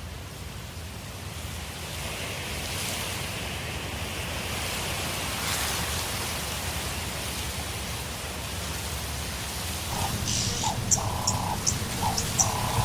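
A steady rushing noise, then from about ten seconds in a bird calling in a quick series of short repeated notes.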